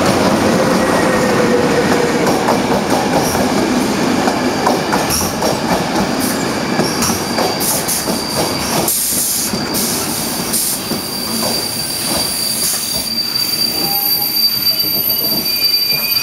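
Locomotive-hauled passenger train rolling in along the platform and slowing: loud wheel-on-rail noise with clicks from the wheels over the rail joints. From about halfway a steady high wheel or brake squeal sets in and holds as the train slows toward a stop.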